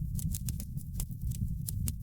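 Wood fire burning in a fireplace, a steady low rumble of flames with frequent sharp crackles and pops, several a second.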